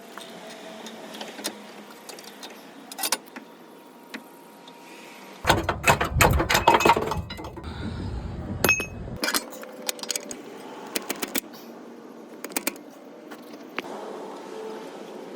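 Metal tools and parts clinking and clanking, with scattered sharp clicks. About five seconds in comes a loud stretch of about four seconds of rapid metallic rattling and banging.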